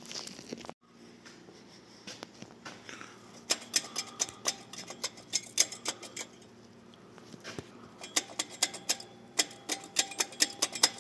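Ratchet wrench clicking in quick runs of sharp metallic clicks, several a second, as bolts on the gearbox are worked loose. The clicking starts a few seconds in.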